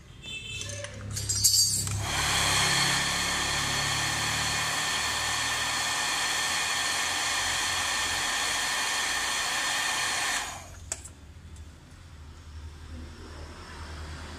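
Hand-held hair dryer starting after some clicks and handling, blowing steadily for about eight seconds, then switched off. It is heating a phone's glued touchscreen to soften the adhesive and part it from the LCD.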